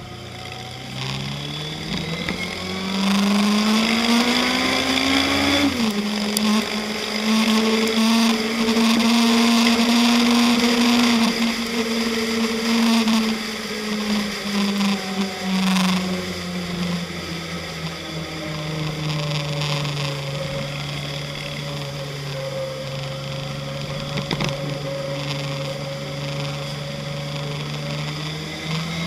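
Motorcycle engine heard from the bike itself, accelerating with a rising note for about five seconds, dropping suddenly at a gear change, then pulling steadily before easing off and cruising at an even pitch.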